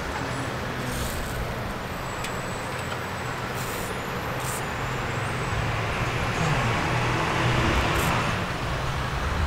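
Road traffic: a motor vehicle's engine running and passing, swelling louder about six to eight seconds in, with a few faint clicks.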